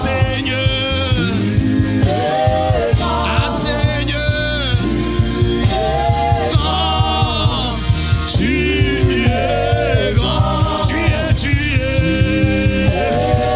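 Live French gospel worship song: a male and two female singers sing a held, sweeping melody over band accompaniment with a steady beat.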